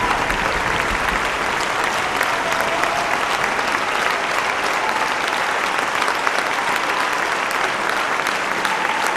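A large audience clapping steadily in a concert hall: dense, even applause from many hands.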